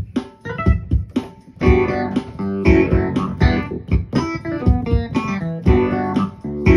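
Roland Fantom keyboard played through a Fender Rumble 40 bass amplifier: a funk groove. Sharp, clipped rhythmic hits in the first second and a half fill out into a denser run of chords and notes.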